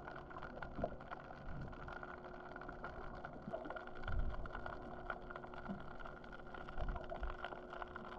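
Faint, muffled underwater sound picked up by a GoPro in its waterproof housing: a steady low hum with a few soft low thumps.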